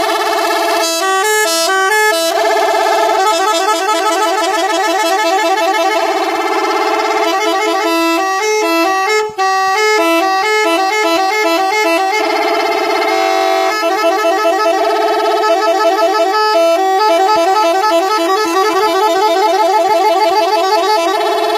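Three-trumpet 'telolet' air horn driven by a five-button module, sounding continuously and switching between its trumpets in quick alternating tone patterns that make up tooting melodies. There is one brief break about nine seconds in.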